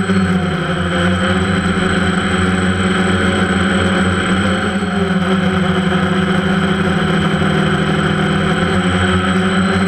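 Motors and propellers of a small camera aircraft running steadily, picked up by the onboard camera: a continuous hum with several slightly wavering tones.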